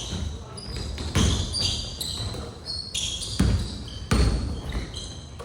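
A basketball bouncing on a court floor, three heavy bounces at uneven intervals, with short high squeaks in between.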